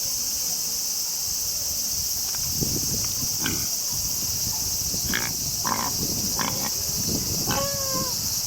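A steady, high insect chorus with a series of short animal calls over it, the last few seconds in; the call near the end slides down in pitch.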